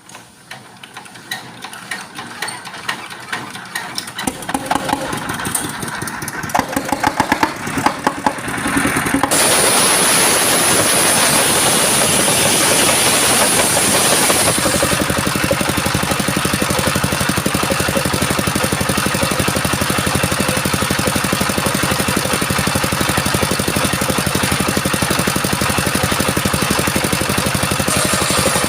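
Engine driving a circular sawmill starting up: chugs that quicken and grow louder over the first several seconds, then a loud steady running noise with a high hiss as the saw comes up to speed.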